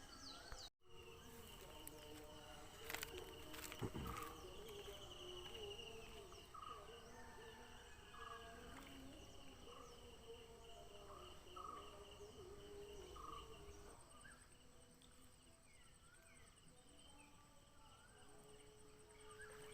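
Faint outdoor ambience of insects chirping, with a steady high trill running through and a few faint short calls and light clicks. A brief dropout comes under a second in.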